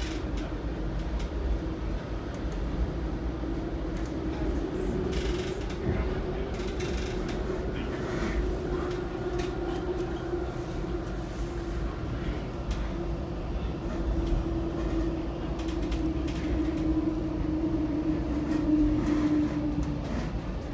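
Metra commuter train running: a steady low rumble with creaks, and a humming tone that holds and wavers slightly before stopping near the end.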